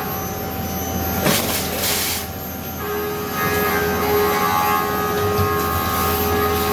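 CNC milling machine running during a machining cycle: a steady machine sound with several held tones, which drop out for a moment as a short hiss comes in about one to two seconds in.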